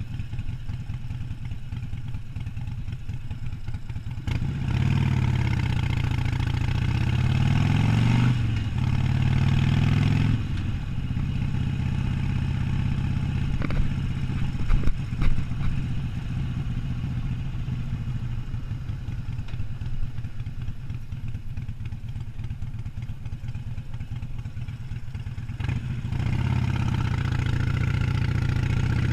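Harley-Davidson Sportster 1200's air-cooled V-twin engine and exhaust under way. About four seconds in it accelerates hard through one gear, shifts, pulls through the next, then settles back to a steady, lower cruise. It picks up speed again near the end.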